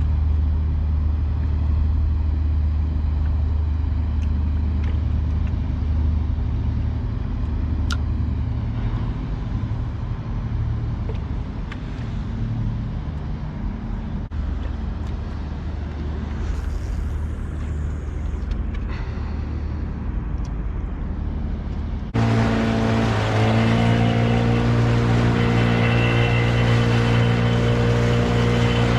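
Boat outboard motor running steadily under way. About three-quarters of the way through it abruptly becomes louder and higher-pitched.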